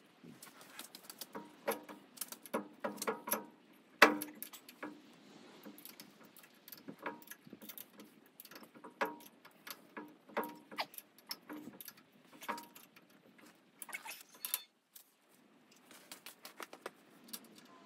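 Allen key working the bolts on a metal-cutting bandsaw's vice mount: irregular small metallic clicks and taps, with one loud clank about four seconds in.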